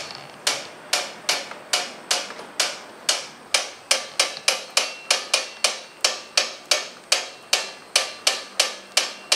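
Hand-cranked slab roller clicking in a steady rhythm as its wheel is turned to draw a canvas-covered clay slab through the rollers. The clicks run about two and a half a second and quicken a little to about three a second.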